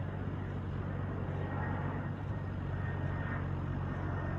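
Steady rumble of an approaching aircraft's engines coming in to land, a continuous low hum under an even rushing noise.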